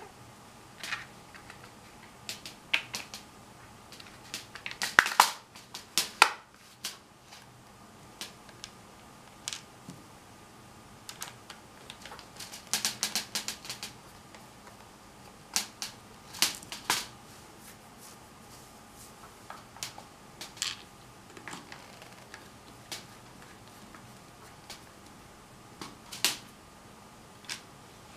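Plastic handle casing of an electric mosquito racket being pressed and snapped together by hand: scattered sharp plastic clicks and snaps, loudest in a cluster about five to six seconds in and another around thirteen seconds.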